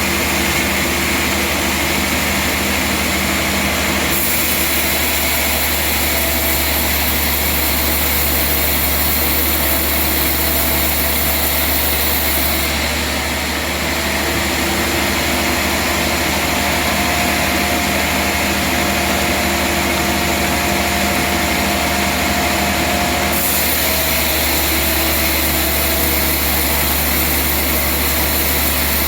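Sawmill machinery running steadily, a low engine hum under the band saw's hiss, with a faint whine that comes and goes; the high hiss changes abruptly a few times.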